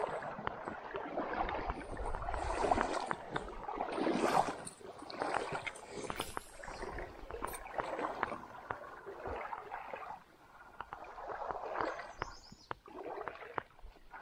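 Water sloshing and gurgling in irregular surges about a second apart, with small sharp clicks scattered through.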